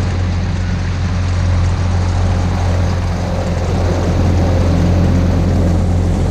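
Tohatsu 15hp outboard motor running steadily as the inflatable boat moves along, a constant low engine hum over water and wind noise.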